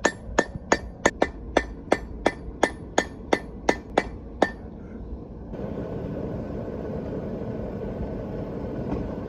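Hand hammer striking a hot railroad spike on an anvil, about fourteen evenly paced ringing blows at roughly three a second, drawing out the knife blade. The hammering stops about four and a half seconds in, and a steady noise follows.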